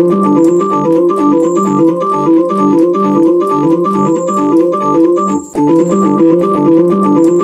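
Background music on an organ-toned electronic keyboard: a quick, steady, repeating pattern of notes, which breaks off for a moment about five and a half seconds in and then resumes.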